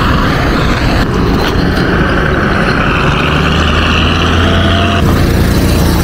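Road traffic on an unpaved dirt road: car and motorcycle engines going by, with a steady engine hum that changes abruptly about five seconds in.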